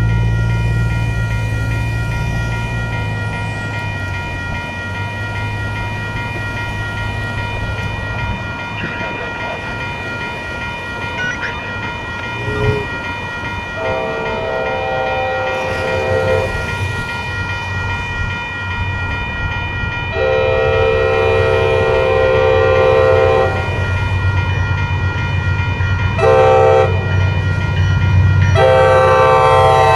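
Diesel locomotive, an MBTA F40PH-3C, approaching a grade crossing with its engine rumbling louder as it nears. Its multi-note air horn sounds the crossing signal of long, long, short, long, beginning about halfway through. A crossing bell rings steadily behind it.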